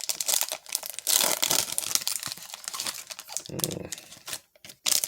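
A baseball card pack's foil wrapper being torn open and crinkled by hand. The rustling crackle comes in uneven bursts, with a short pause about four and a half seconds in.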